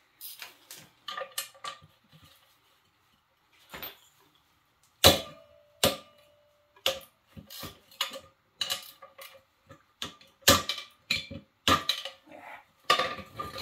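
Metal clinking and knocking: hand tools striking and rattling against metal engine parts, some hits ringing briefly. It comes in an irregular run of sharp strikes, sparse in the first few seconds and denser from about five seconds in.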